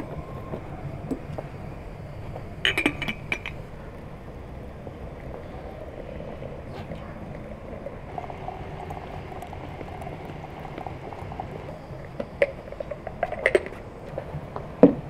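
Hot water running from a samovar's tap into a white ceramic teapot, with china clinks of the teapot and its lid about three seconds in and again near the end, and a knock just before the end.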